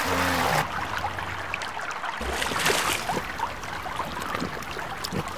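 River water splashing and sloshing as animals move through it, after background music stops about half a second in. A few short faint calls sound over the water.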